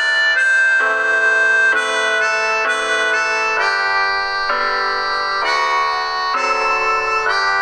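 Slow instrumental background music on a reedy free-reed instrument, like a harmonica or accordion, playing held chords that change about once a second.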